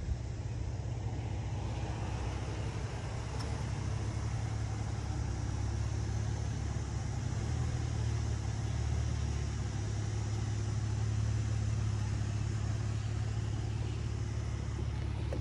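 A car engine idling steadily with a low hum.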